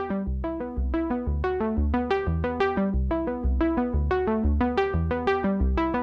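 Background music: a steady run of short synthesizer notes, about five a second, over a low bass pulse.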